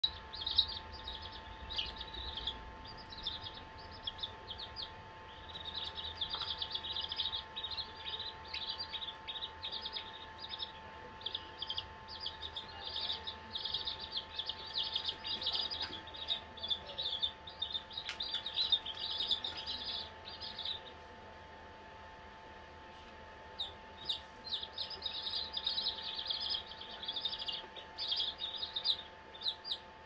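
Four-day-old chicks peeping in quick, short, high cheeps, almost without a break except for a pause of two or three seconds about two-thirds of the way through. A faint steady hum runs underneath.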